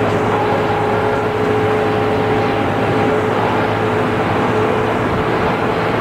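Detroit Diesel Series 50 diesel engine and Allison V-731 automatic transmission of a 1994 TMC RTS transit bus running steadily, heard from on board. A constant low hum sits under a thin, steady whine.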